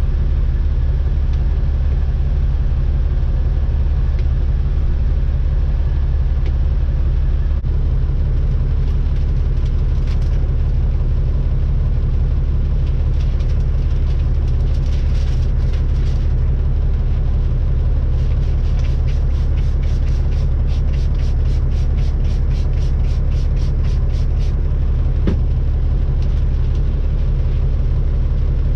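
Caterpillar C-15 (6NZ) diesel idling steadily, a constant low rumble heard from inside the truck's sleeper. Past the middle comes a quick series of short hissing sounds, about three a second, lasting several seconds.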